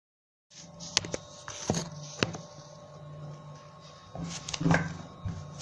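A few sharp clicks and taps of kitchen utensils over a steady low hum, starting about half a second in after dead silence, with a little more clatter near the end.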